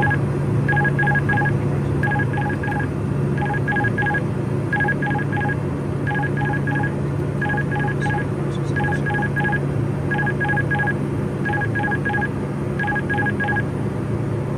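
Cockpit aural alert of a Pilatus PC-12 NGX sounding over the steady drone of its turboprop engine: quick groups of beeps at two pitches, repeating about every second and a third, that stop near the end.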